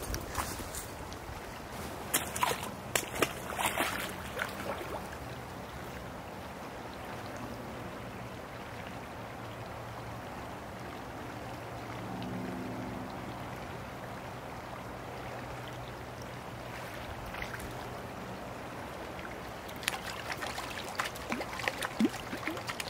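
Steady rush of a shallow creek flowing over gravel, with clusters of short knocks and rustles about two to four seconds in and again in the last few seconds.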